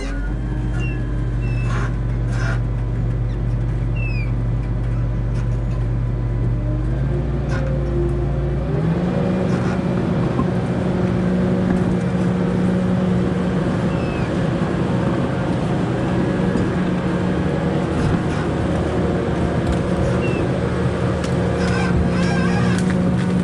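Komatsu 931 XC harvester's diesel engine running steadily. About nine seconds in it rises to higher revs and holds there.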